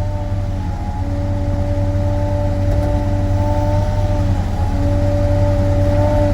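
Sany SY35U mini excavator's diesel engine running steadily under work, with a steady whine riding over the low engine rumble.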